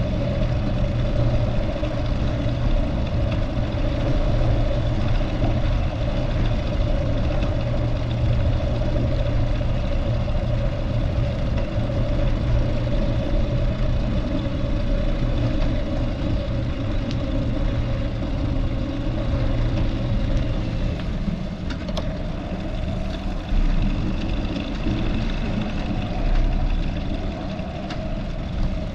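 Steady city street traffic, with vehicle engines running close by over a low rumble.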